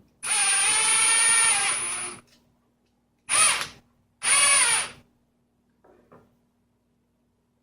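Handheld power drill driving a small machine screw into the panel bracket. It runs in three bursts: one of about two seconds, then two short ones, with the motor pitch sagging slightly under load.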